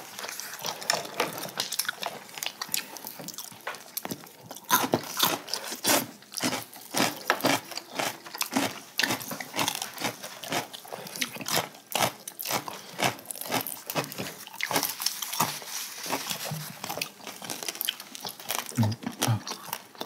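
Close-miked chewing of roast chicken: wet mouth clicks, lip smacks and bites in quick irregular succession.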